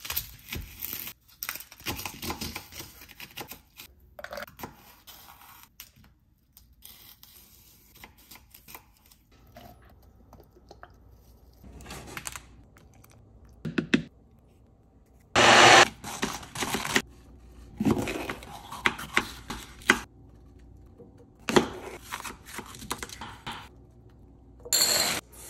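Kitchen prep sounds: a knife cutting through an onion on a wooden cutting board, then a string of separate short bursts of handling noise, the loudest a little past halfway. Near the end, chopped bell pepper is dropped into a glass bowl.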